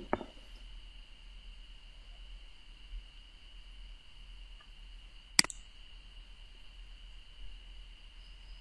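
Quiet steady high-pitched ringing tone over a low hum, with one sharp computer mouse click about five seconds in as a web page tab is clicked.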